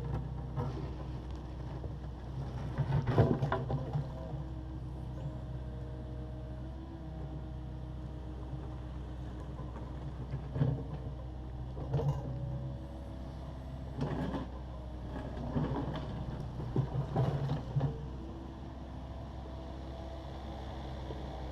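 Takeuchi TB260 excavator's diesel engine running steadily while it works, with irregular clanks and scrapes from the bucket against concrete rubble. The loudest knock comes about three seconds in, and a cluster of them comes in the second half.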